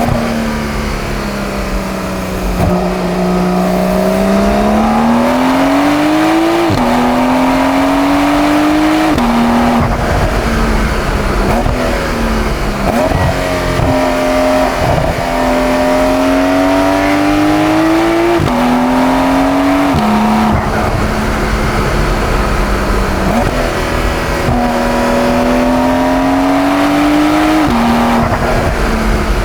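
Porsche 911 992.2 Carrera's twin-turbo flat-six pulling hard through the gears. The engine pitch rises and then drops sharply at each quick upshift, several times over, with lulls where it settles lower between runs.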